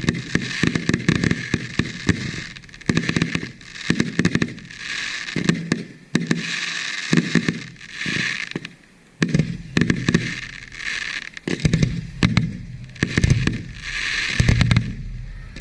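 Aerial fireworks display: shells firing and bursting in rapid succession, a dense run of bangs and crackling with a couple of brief lulls.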